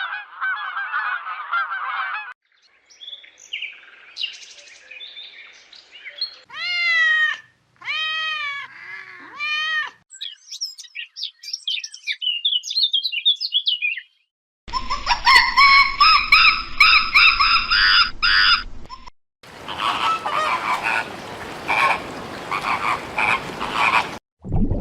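A string of different animal and bird calls, changing every few seconds: chattering calls, then three arched calls, a stretch of high birdsong, a harsher call over a low hum, and busy chirping near the end.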